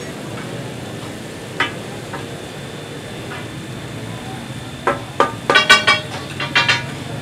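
Chicken frying in oil on a large flat metal tawa, a steady sizzle. About five seconds in comes a quick run of sharp, ringing metallic clanks lasting about two seconds, after a single click earlier on.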